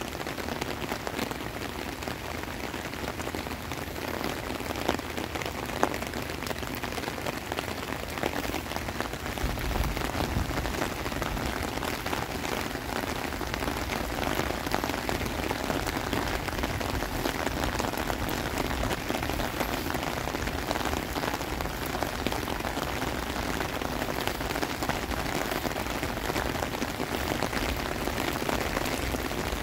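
Heavy rain pouring onto a wet concrete court and standing water, a dense, steady patter of drops.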